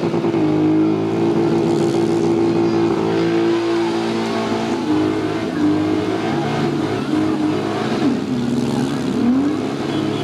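Demolition derby car engines revving hard. One is held at high revs for several seconds, then drops and climbs back up twice near the end.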